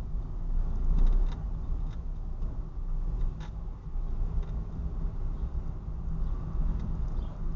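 Steady low rumble of a Mitsubishi Mirage's engine and tyres on the road, heard from inside the cabin, with a few faint clicks.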